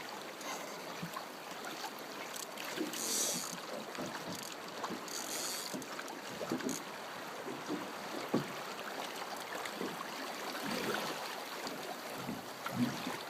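Steady rush of flowing river water, with wind on the microphone. There are two short hissing bursts, about three and five and a half seconds in.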